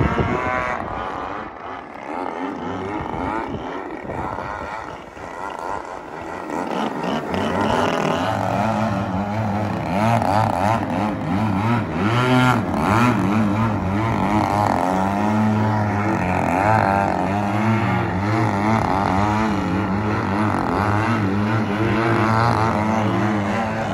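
Large radio-controlled aerobatic planes' 38 cc petrol engines buzzing overhead, the pitch rising and falling continually as the planes manoeuvre and change throttle. The sound grows louder from about seven seconds in.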